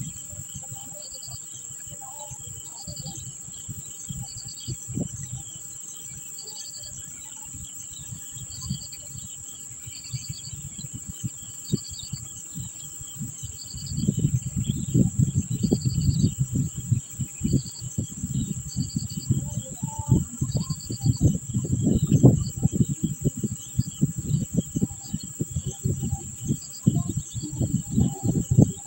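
Outdoor insect chorus: a steady high-pitched cricket or cicada drone, with a short chirp repeating about every two seconds. From about halfway a louder low rumbling, crackling noise comes in over it.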